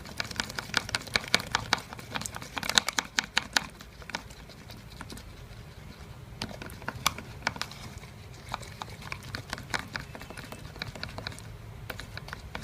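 Glue and water being stirred in a container, the stirrer clicking and tapping against the sides in quick irregular strokes that thin out after about four seconds.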